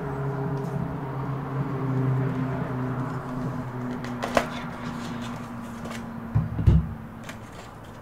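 Hands handling and opening a cardboard gift box: a sharp tap about halfway through, then a few low thumps of the box being knocked and slid near the end. Under it a steady low hum runs and stops about seven seconds in.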